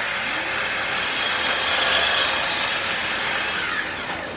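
Electric miter saw spinning up with a rising whine, then its blade cutting through a white oak floorboard for about two seconds, loudest during the cut, followed by the motor winding down.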